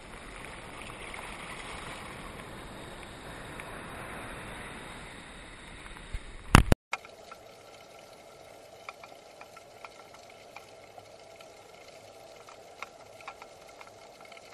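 Seawater rushing and fizzing over a camera held at the waterline as surf washes past. About six and a half seconds in there is a short loud crackle and the sound cuts out. It is followed by a quieter underwater sound with a faint steady hum and scattered small clicks.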